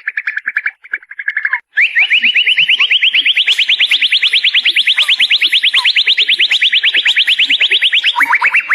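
Murai songbird singing. It opens with a rapid repeated trill, pauses briefly just before two seconds in, then goes into a long, very fast trill of sweeping notes, about ten a second, that climbs slightly in pitch. Near the end the trill shifts to lower, wider-swinging notes.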